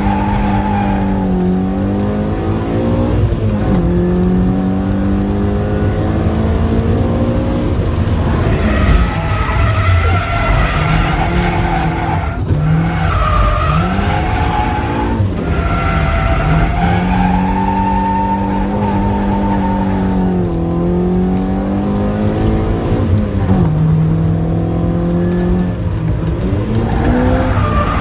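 Toyota AE86 Sprinter Trueno's engine revving hard from inside the cabin while drifting. The pitch dips and climbs again several times as the throttle is lifted and reapplied, and the tyres squeal as the car slides through the corners.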